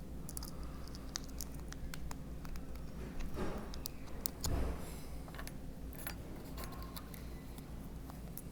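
Small metal screws and a hand tool being handled and fitted into a printhead, giving light scattered clicks and taps, with two louder soft knocks a little past the middle.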